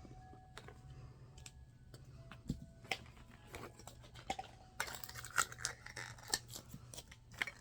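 Small plastic toy pieces and packaging being handled: scattered light clicks and taps, then a denser run of crisp clicking and rustling from about five seconds in.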